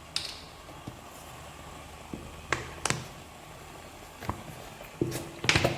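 Scattered clicks and knocks of kitchen containers and utensils being handled around a cooking pot. Near the end comes a quick cluster of knocks that includes a short ringing clink.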